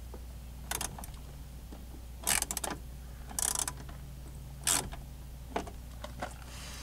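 Socket wrench clicking in about five short runs while the door speaker's mounting screws are tightened. The undersized screw heads are gripped through a socket padded with electrical tape.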